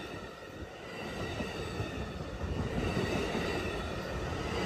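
Amtrak California double-deck passenger coaches rolling past, a steady rumble of steel wheels on the rails that grows a little louder after the first second.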